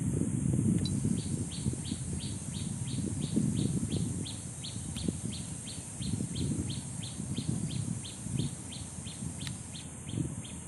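A bird repeating a short high chirp over and over, about four times a second, starting about a second in. Under it are a steady high hiss and a low rumbling noise.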